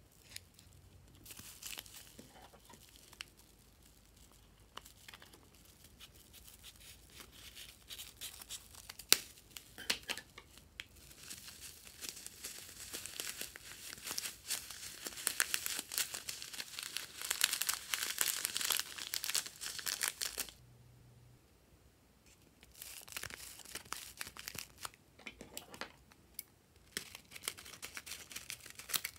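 Plastic piping bag packed with small foam beads crinkling as it is handled and squeezed. For several seconds in the middle it becomes a dense rustle as the beads stream out of the bag into a glass bowl. After a short pause, a second bead-filled bag crinkles in the hands.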